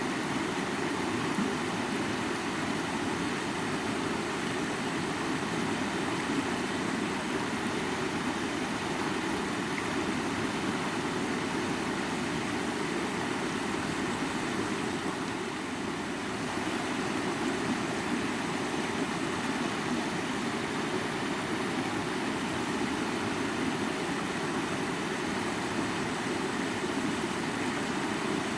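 Mountain river flowing: a steady, unbroken rush of water, easing slightly about halfway through.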